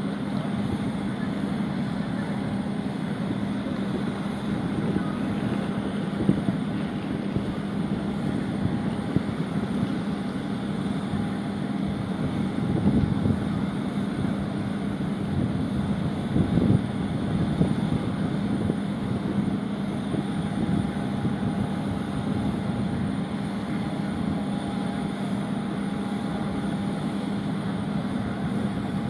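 Steady mechanical drone with a constant low hum, from machinery around a parked airliner on the apron, with wind buffeting the microphone and a faint murmur of voices. A few louder gusts come about halfway through.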